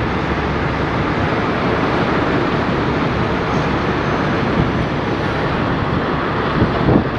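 Steady rumbling outdoor noise of wind on the microphone and vehicle traffic, with no distinct events.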